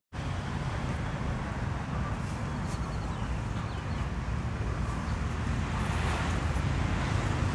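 Outdoor street ambience: a steady low rumble of road traffic beside a roadside market, with wind on the microphone.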